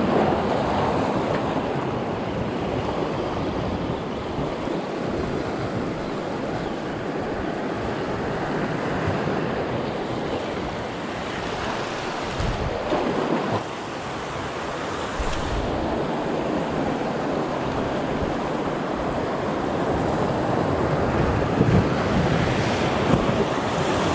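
Sea waves washing, with wind buffeting the microphone as a steady rushing noise. It swells louder about halfway through and again near the end.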